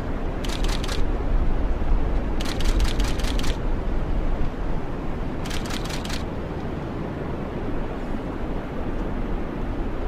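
Three short bursts of rapid clicks, the first about half a second in, the longest around three seconds in and the last near six seconds, over a steady low wind rumble.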